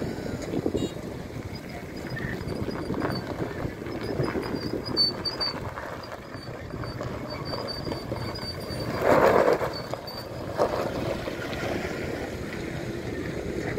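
Wind buffeting the microphone over the low, steady running of engines as a pickup truck and a car drive onto a river car ferry's ramp. A louder swell comes about nine seconds in.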